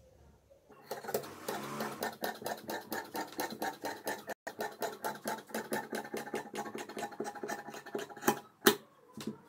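Large steel tailor's shears cutting through printed dress fabric along a chalk line: a quick run of crisp snips, several a second, with two louder clicks near the end.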